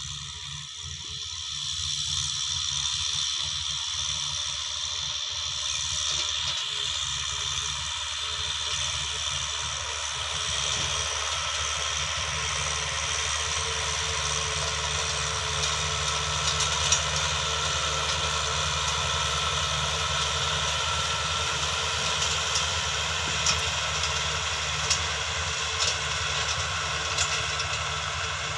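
Farm machine's engine running steadily, rising a little in the first couple of seconds, with a few sharp clicks or rattles in the second half.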